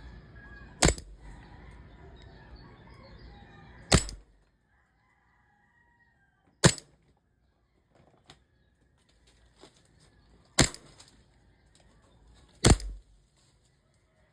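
Airsoft gun firing five single shots, each a sharp crack, spaced irregularly a few seconds apart.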